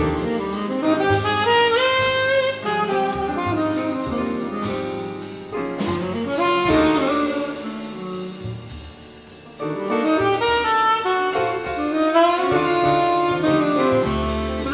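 Tenor saxophone playing a jazz solo line, backed by piano, double bass and drums. The solo dips and briefly thins about nine seconds in, then picks up again.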